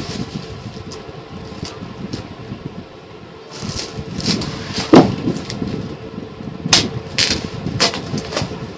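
Woven plastic sacking and taped cardboard packaging being handled and pulled open: continuous rustling and crinkling, with several short sharp rips, the loudest about five seconds in, over a faint steady hum.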